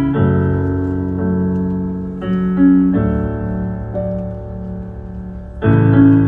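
Slow piano chords, each held and changing every second or so, with a fuller, louder chord about five and a half seconds in: the intro of a ballad before the voice comes in.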